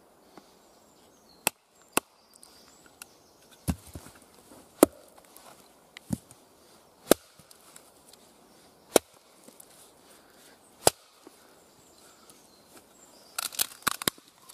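Wooden baton knocking on the spine of a Fallkniven Idun knife, driving the blade crosswise through a tough green log: about eight sharp knocks spaced one to two seconds apart, then a quick flurry of knocks near the end.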